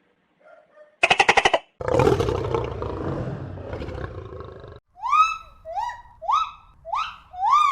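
A big cat roars once: a long, rough roar that fades over about three seconds, just after a short rapid rattling call. In the last few seconds, five short rising calls from another animal follow, about two a second.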